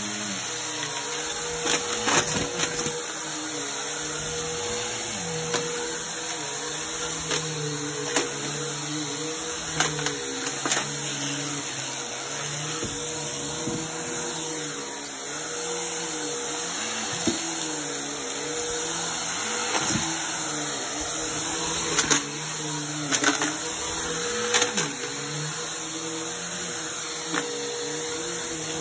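Bagless upright vacuum cleaner running steadily on carpet, with sharp clacks and crunches every few seconds as small hard objects such as bottle caps, buttons and coins are sucked up and rattle through it.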